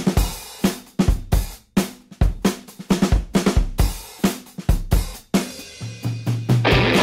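Background music: a rock drum kit playing a beat of kick, snare and cymbal hits, with a low bass note coming in near the end.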